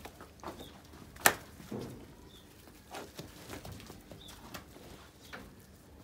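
Scattered knocks and clicks of dairy cattle shifting about on a stone-paved shed floor, with one sharp click a little over a second in followed by a dull knock, and faint short bird chirps now and then.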